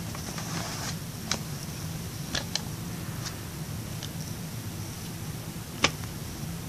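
Plastic CD jewel case being handled: a short rustle, then a few scattered sharp clicks, the loudest about six seconds in, over a steady low hum.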